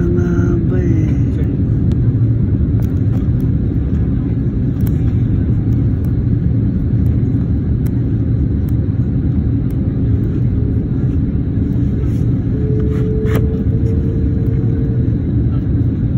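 Steady low rumble of an airliner's jet engines and rushing air, heard from inside the passenger cabin during the approach to landing. A faint steady hum joins it for a few seconds past the middle.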